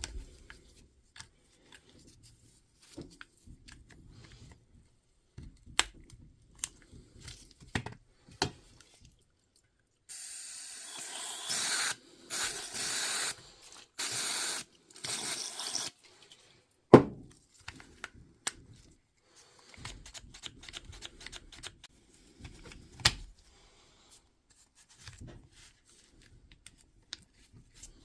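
Four short hisses of an aerosol spray about halfway through, amid scattered clicks and knocks of small parts being handled; a single sharp knock just after the spraying is the loudest sound.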